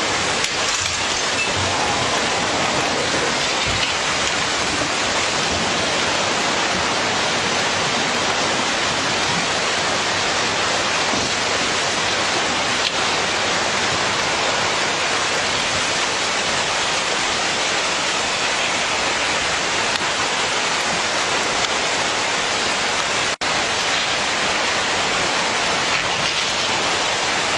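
Loud, steady rush of water noise without pauses, dropping out for an instant about 23 seconds in.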